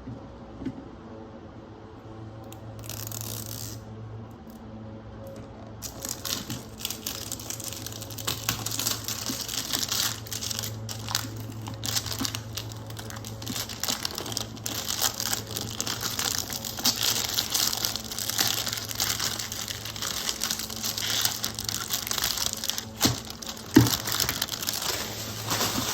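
Packaging being handled and opened: dense crinkling and rustling with scattered sharp crackles and tearing, continuous from about six seconds in. A steady low hum runs underneath.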